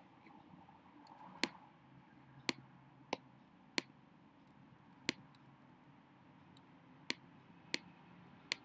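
Computer mouse clicks, about ten single sharp clicks spaced irregularly, roughly one a second, over a faint steady room hum.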